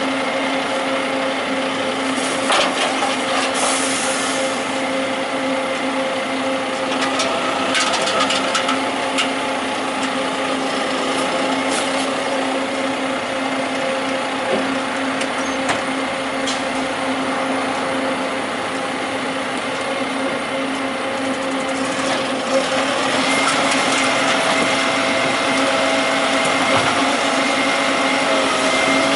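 A rubbish truck's engine and hydraulics running with a steady whine, with scattered knocks and clatter, getting louder about three-quarters of the way through.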